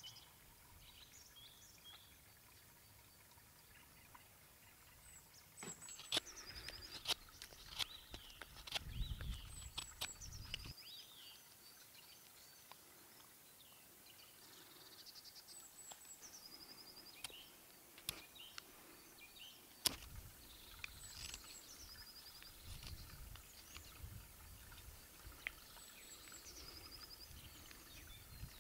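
Knife whittling a round red alder stick, with sharp scraping clicks of the blade on the wood. A songbird repeats a short descending phrase ending in a trill several times, over faint wind rumble.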